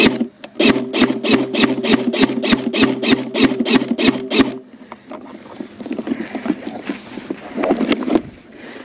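Airsoft electric rifle fitted with a silencer firing a long burst on full auto, about five shots a second over a steady motor hum, for about four seconds. Afterwards, softer rustling of dry grass.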